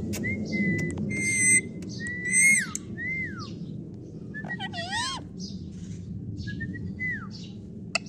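Pet parrot whistling and calling: about six short whistled calls, several sliding down in pitch, with a couple of fuller, harsher calls between them.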